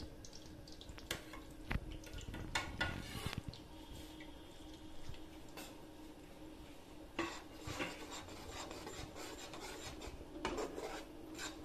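Perforated steel skimmer stirring and scraping besan and semolina through melted ghee in an iron kadhai: irregular metal-on-metal scrapes and light knocks, busiest at first and again from about two-thirds of the way through.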